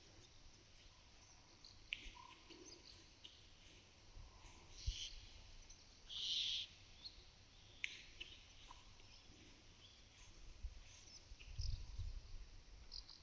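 Small birds chirping and calling on and off, with one louder half-second call about six seconds in. There are a few faint clicks, and a low thump near the end.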